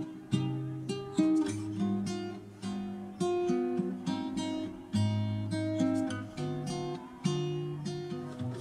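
Background music: an acoustic guitar picking and strumming chords, each note struck and then fading.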